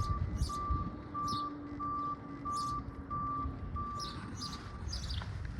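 A vehicle's reversing alarm beeping steadily, about one and a half beeps a second, over a low engine rumble as the vehicle backs up. The beeping stops near the end.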